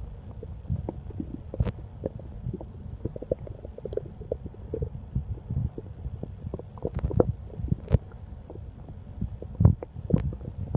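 An empty human stomach growling with hunger: a continuous low rumble broken by quick gurgles and sharp pops, which come more often and louder in the second half.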